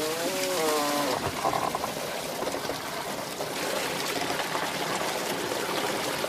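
Water pouring and trickling steadily, with a few wavering pitched tones in the first second.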